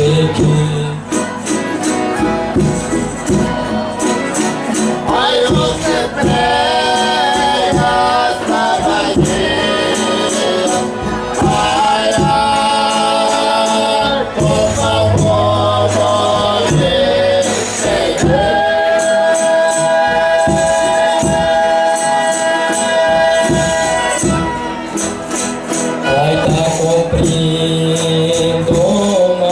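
Folia de Reis singing: a group of voices chanting in several parts and holding long notes at the ends of phrases, with a tambourine shaken and struck steadily underneath.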